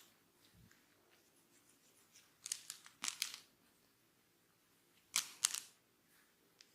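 Hands rubbing hair and scalp during a head massage: two short bursts of faint crackly rustling, one about two and a half seconds in and one about five seconds in.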